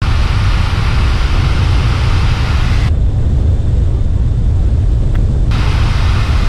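Cockpit sound of a Pipistrel Alpha Trainer in level flight: its Rotax 912 four-cylinder engine and propeller running with a steady low drone. A hiss over the drone cuts out about three seconds in and comes back about two and a half seconds later.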